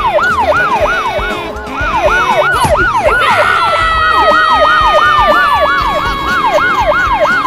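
Police-car siren sound effect yelping, its pitch swooping up and down about three times a second, joined about three and a half seconds in by a second, long steady tone that slides slowly lower.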